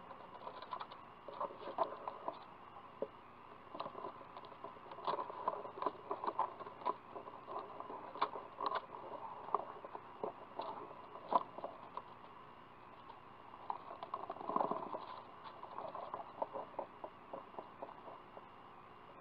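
Eastern screech owl shuffling and scratching in the wood-shaving litter of its nest box: dry rustles and scratches in fits, with a short pause about two-thirds of the way through, over a steady hiss.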